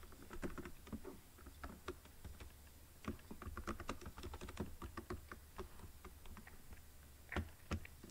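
Typing on a computer keyboard: irregular keystrokes in quick uneven runs, with a couple of harder taps near the end.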